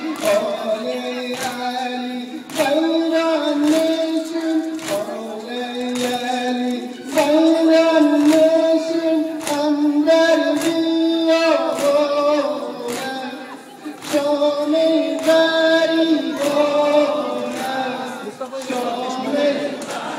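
A group of mourners chanting a noha, a Shia Muharram lament, in unison in slow held phrases that step between a few notes. Steady slaps about once a second keep time: the mourners' matam, hands beating on chests.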